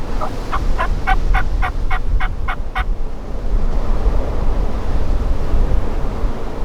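Wild Merriam's turkey gobbling: one gobble of about ten quick notes in the first three seconds. Heavy wind noise on the microphone throughout.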